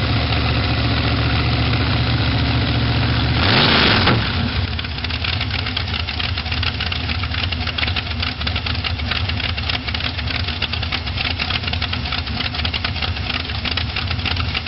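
Hot rod engine idling, revved once about three and a half seconds in, then settling back to idle with a fast, steady ticking.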